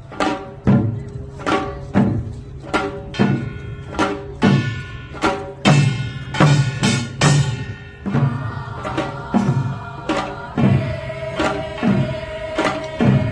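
Korean folk percussion music: regular drum strokes a little more than one a second with ringing pitched tones over them, and a held melody line coming in about eight seconds in.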